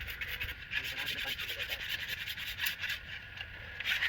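Quick, rhythmic hand-rubbing strokes on a car headlight lens, several strokes a second, with a scratchy, hissing sound.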